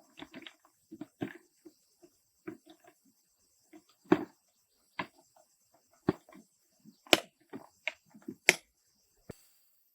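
A string of irregular knocks and taps, the louder ones coming about a second apart in the second half, with a faint steady high chirring of insects behind.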